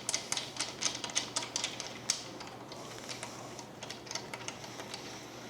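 Rapid, irregular light metal clicks and taps, thick in the first couple of seconds and sparser later, as a 17 mm fork bolt is threaded in by hand.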